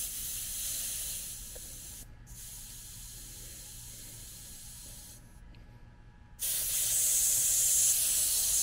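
Pressurized gas hissing out of a new AC condenser coil's Schrader valve as it is held open to release the coil's holding pressure. The hiss weakens, breaks off briefly about two seconds in, stops a little after five seconds, and comes back louder at about six and a half seconds.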